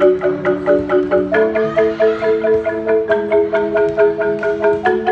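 Several marimbas played together with mallets: a fast, even run of struck wooden-bar notes over sustained chords. The chord shifts about a second and a half in and again near the end.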